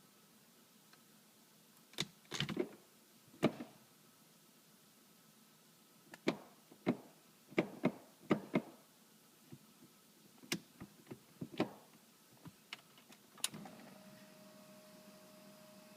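A run of sharp clicks and clunks from a 2003 BMW M3's SMG gearbox and selector as it is shifted toward reverse and into gear, while the gearbox stays stuck in neutral after a clutch failure. About thirteen seconds in, a steady electric hum starts as a pump runs and primes.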